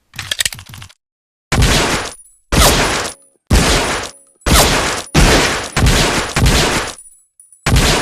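M1911A1 .45 ACP pistol firing about eight shots, roughly one a second, each followed by a short ringing tail, after a brief clatter of metallic clicks in the first second.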